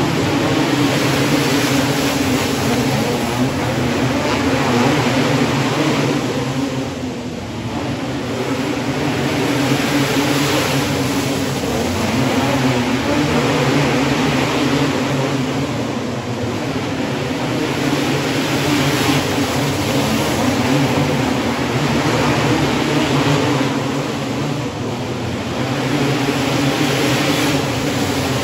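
A pack of 500cc outlaw cage karts racing, several engines running hard together. The sound swells and fades, dipping about every nine seconds as the pack circles the oval.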